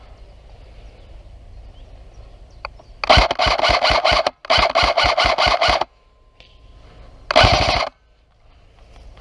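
Airsoft gun firing in rapid full-auto strings: two long strings about three seconds in, separated by a brief break, then a shorter burst near the end.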